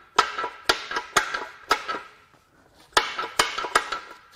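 Repeated metal-on-metal blows from a slide hammer, each ringing briefly: four strikes about half a second apart, a pause of about a second, then four quicker strikes. The blows are working a balance shaft loose from a Volkswagen EA888 2.0 TSI engine block.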